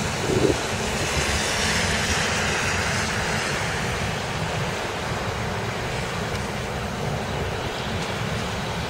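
Traffic on a wet street: tyres hissing through water on the pavement over a steady low rumble of engines, with wind buffeting the microphone. The tyre hiss swells as a car passes close about two seconds in, then settles.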